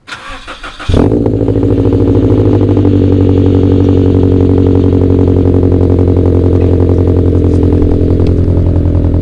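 Scion FR-S flat-four boxer engine starting about a second in after a short stretch of quieter pulsing, then running loud and steady at idle with an even exhaust pulse.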